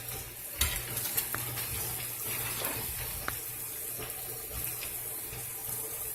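Cabbage frying in butter in a pan, a steady sizzle, with a few light scattered knocks.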